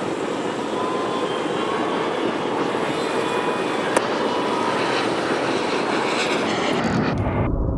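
Airplane engine noise, a steady rushing sound with faint whining tones, as a plane passes overhead. Near the end the high part of the noise cuts out and a low rumble is left.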